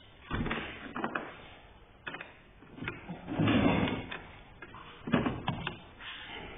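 Hands working at the Chevrolet Spark's battery negative terminal clamp and cable: irregular clicks, metallic knocks and scraping handling noise. A longer scraping rush comes about three and a half seconds in, and a cluster of sharp clicks follows around five seconds.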